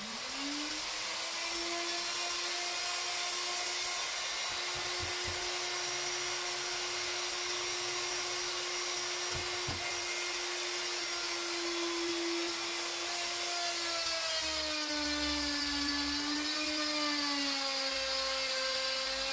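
Electric plunge router spinning up and then running with a steady high whine as it cuts a circular groove in a 0.75-inch MDF disc, swung on a wooden trammel arm. In the last few seconds its pitch dips lower and wavers.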